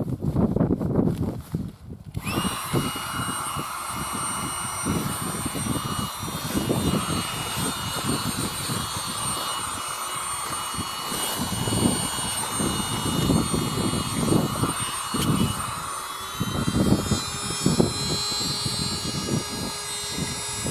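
Small battery-powered air pump switching on about two seconds in and running with a steady whine while it inflates an Exped sleeping mat. Its pitch shifts slightly near the end. Wind gusts on the microphone underneath.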